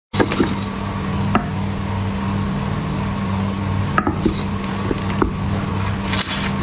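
Refrigerator humming steadily, with a few short clicks and taps over it.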